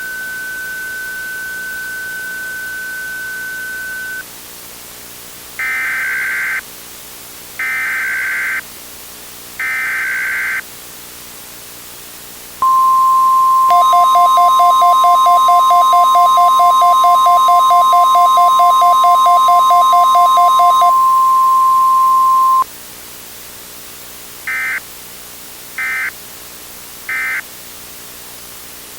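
Emergency Alert System tones: a steady high tone that stops about four seconds in, then three one-second bursts of screechy SAME header data tones. Then the NOAA Weather Radio 1050 Hz warning alarm tone holds for about ten seconds, with a rapidly pulsing buzzy tone over most of it, and the sequence ends with three short end-of-message data bursts.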